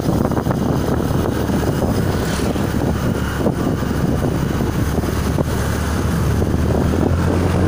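Motorcycle riding along at speed: steady engine and road drone with wind buffeting the microphone.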